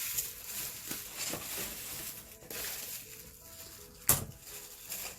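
Plastic packaging crinkling and rustling as a wig is pulled out of it, with one sharp snap about four seconds in.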